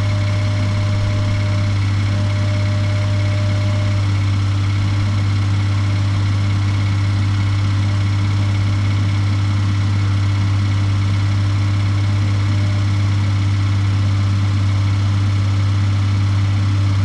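Suzuki Every Wagon DA17W's R06A three-cylinder engine running at a steady speed with a strong low hum and several fixed higher tones. It is an abnormal engine noise that marks a fault in the engine.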